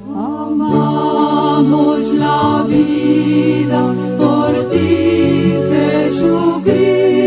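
Christian worship song: a choir singing over long held low notes of accompaniment, the song starting up at the opening.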